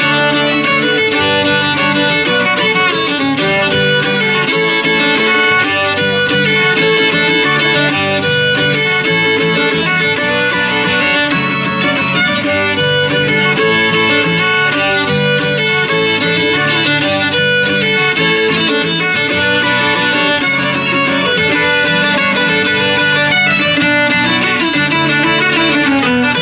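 Acoustic string band playing an instrumental tune live, a fiddle over acoustic guitars, at a steady loud level.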